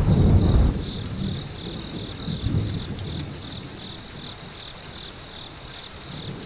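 A low rumble fading out within the first second, then crickets chirping steadily in a high, even pulse about three times a second.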